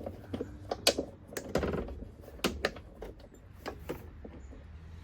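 Irregular small metal clicks and knocks from hands working the new blade control cable and its mounting hardware on a walk-behind lawnmower, with a short scraping rasp about one and a half seconds in.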